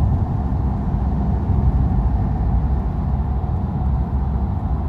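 Steady low rumble of a 2013 Dodge Dart with a 1.4-litre turbo engine, heard from inside the cabin while driving.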